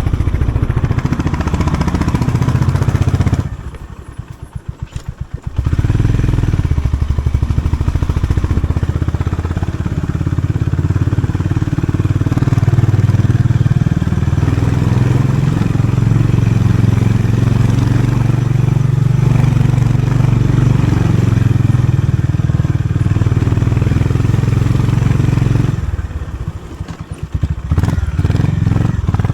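Honda CB350RS's single-cylinder engine through its stock exhaust, running at raised revs. Twice, a few seconds in and near the end, it drops to a slow idle where the separate exhaust pulses can be heard.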